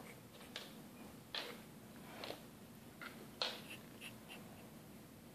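Faint, short scratchy noises, about four of them a second or so apart, as a capybara and a cat move about on a hardwood floor, then a few short high squeaks near the end.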